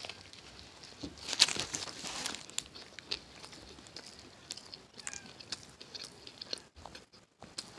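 A person biting into a breaded chicken sandwich and chewing, with a crunchy bite about a second in followed by quieter, scattered chewing sounds.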